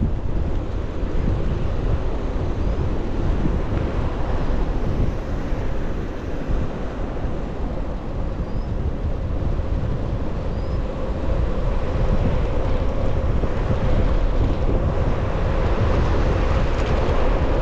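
Steady wind buffeting the microphone, heavy in the low end, with a faint steady hum that grows a little louder near the end.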